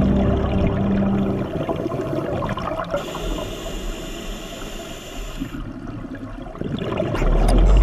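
Scuba regulator breathing recorded underwater: exhaust bubbles gurgling and crackling, with a steady high hiss for a couple of seconds in the middle and a louder bubbling rumble near the end.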